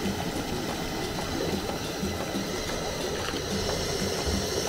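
Coconut milk bubbling and sizzling in a pot on the fire as it cooks down into coconut oil, with scattered small pops.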